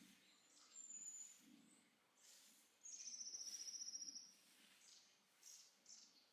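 Long-handled broom sweeping a dirt path in soft, regular swishing strokes. A short high whistle comes about a second in. Louder than both is a high, rapidly pulsing trill of a bird or insect, lasting about a second and a half from around three seconds in.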